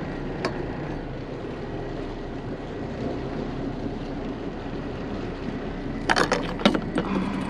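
Motor yacht's engines running steadily at low speed, heard from the foredeck, with a brief cluster of sharp knocks and clatter about six seconds in.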